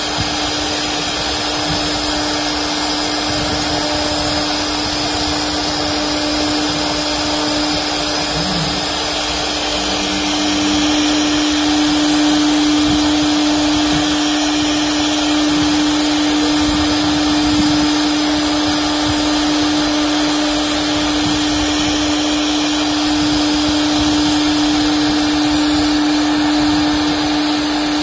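The 4.5 kW air-cooled spindle of a 1325 CNC router running steadily while its bit carves a pattern into a wooden sheet: a steady hum of constant pitch over a rushing noise, getting slightly louder partway through.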